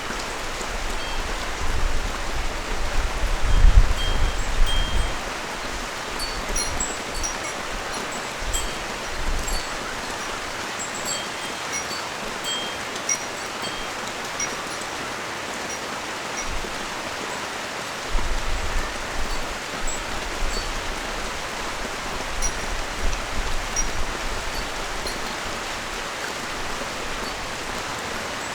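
Steady rain falling on a street. Irregular low rumbles come near the start and again from about two-thirds of the way in, and brief high pings are scattered through.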